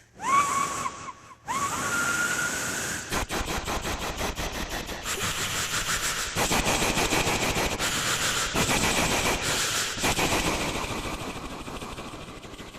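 A man imitating a steam train with his voice into a microphone. Two short whistle calls open it, then a fast run of hissing chuffs that slowly fades near the end.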